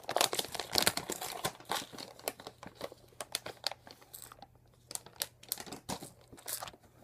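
Packaging being torn open and crinkled by hand: a thick run of crackles for the first couple of seconds, then scattered crinkles.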